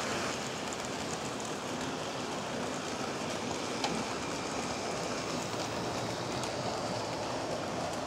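HO scale model freight train running on its track: a steady rolling noise of metal wheels on the rails, with light ticking and one sharper click about four seconds in.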